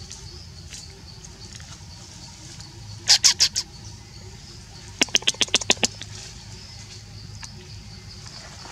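A small animal or bird calling with two quick runs of sharp chirps: a short one of about five notes about three seconds in, and a longer one of about eight notes about five seconds in.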